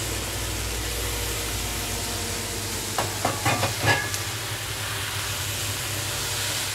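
Oyster mushrooms and green chillies frying in oil in a wok: a steady sizzle, with a quick run of knocks from the spatula stirring them about three seconds in.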